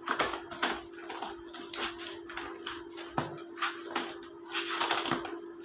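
Hands kneading atta dough in a metal parat: an irregular run of soft pressing and slapping sounds, two or three a second, with a steady hum underneath.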